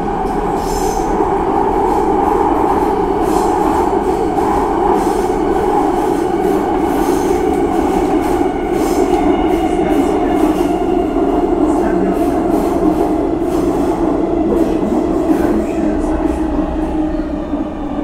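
Subway train rolling along its tracks through a tunnel: a loud, steady rumble with a droning hum, and light rail clicks throughout.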